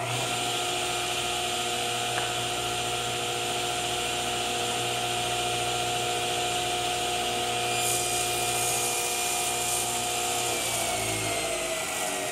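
Table saw running at full speed, its blade notching the edge of a plywood board fed across it. A brighter hiss joins about two-thirds of the way in, and the motor's pitch sags slightly near the end.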